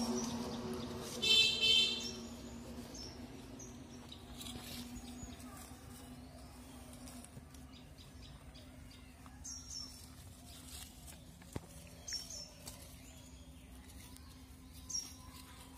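Birds chirping now and then outdoors in short high calls, over a steady low hum. About a second in comes a brief loud tonal blast.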